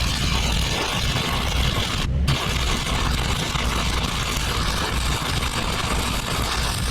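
Stick welding arc crackling and hissing steadily as a weld is laid, over a low steady rumble. The crackle drops out for a moment about two seconds in.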